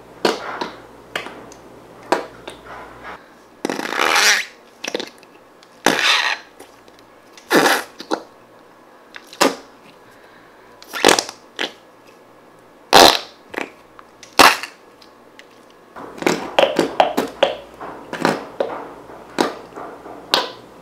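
Slime pressed into the small plastic fart pot of a Horrible Science Slippery Slime kit, squeezing out air in short squelchy fart noises. The noises come about one every second or two, then in a quicker flurry near the end.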